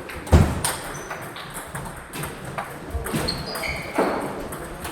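Table tennis rally: the ball clicks off the bats and the table several times, irregularly. The sharpest hit comes about a third of a second in, and short high pings and squeaks fall between the hits.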